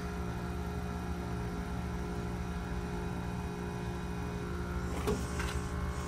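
York heat pump outdoor unit running through a defrost cycle, its compressor humming steadily. About five seconds in there is a brief rustle with a short falling tone.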